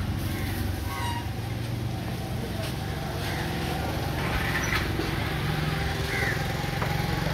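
Steady low motor hum, like a vehicle engine running, with faint voices in the background and a few light knocks.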